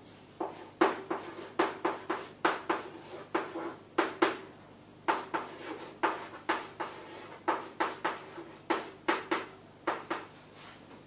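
Chalk writing on a chalkboard: a quick, irregular run of short taps and scratches, about two or three a second, one for each stroke of the Chinese characters being written.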